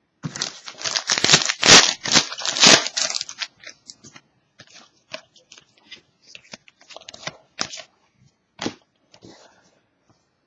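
A trading card pack wrapper being torn open and crinkled for about three seconds, then quieter rustles and clicks as the cards are handled.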